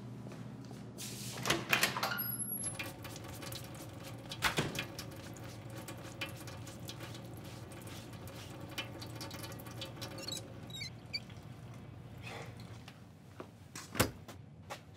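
Door and handle sounds in a small room over a low steady hum: scattered knocks and clicks with a few short squeaks, and a sharp latch click near the end, the loudest, as the closet door handle is tried.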